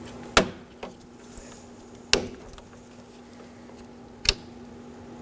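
Three sharp plastic clicks, about two seconds apart, as the latch release cables are pulled off the back of a Nissan Sentra front exterior door handle.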